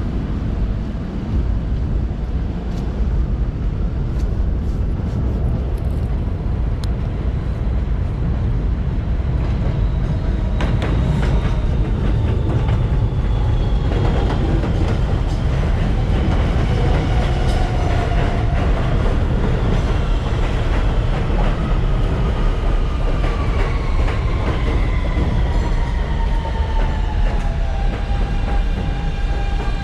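New York City subway train of R160 cars pulling into an elevated station, with a heavy steady rumble and a run of wheel clicks over rail joints. Its motor whine falls steadily in pitch as the train brakes to a stop.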